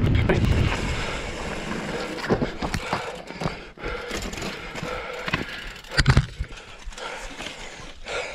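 Pyga Hyrax mountain bike rolling on a dirt singletrack with wind rushing over the GoPro microphone, fading out over the first second or so as the bike slows to a stop. Then scattered clicks and knocks of the bike being handled, with one sharp knock about six seconds in.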